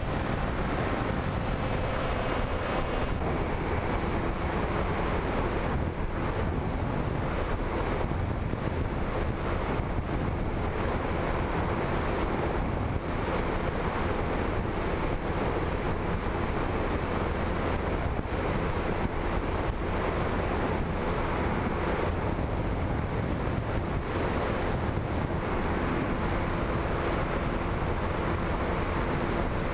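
Steady rush of wind over the onboard camera's microphone on an RC flying wing in flight, with the faint steady tone of its motor and propeller underneath.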